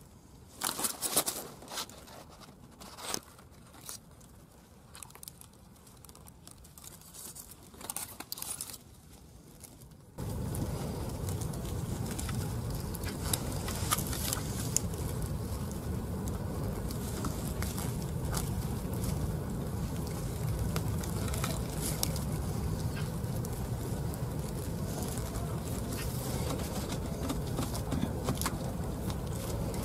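Dry esparto grass strands rustling and crackling in sharp little clicks as they are plaited by hand into a braid. About ten seconds in, a steady low rushing background noise starts abruptly under the crackling.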